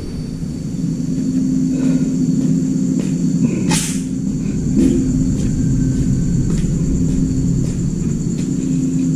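Steady low mechanical hum of a running machine, with a low rumble beneath it and a short hiss about four seconds in.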